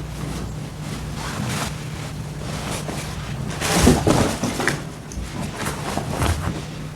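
Fabric rustling and handling noise from a puffy winter coat and winter clothes being put on, in irregular swishes with a louder bump about four seconds in, over a faint steady low hum.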